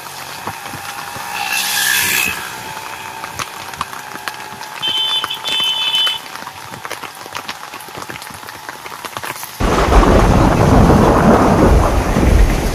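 Rain pattering and street traffic, with two short high-pitched vehicle horn toots, about two seconds in and again around five seconds in. About ten seconds in it cuts suddenly to loud storm noise: a deep thunder rumble over heavy rain and wind.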